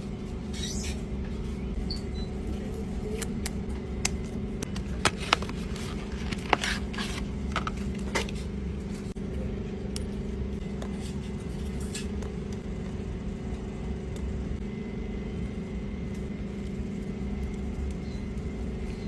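Steady low hum and rumble of background noise, with a handful of short, sharp clicks and taps in the middle.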